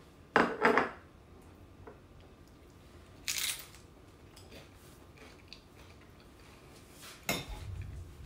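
Tortilla chip being bitten and chewed: two loud, crisp crunches about half a second in, a shorter one around three and a half seconds, and another near the end.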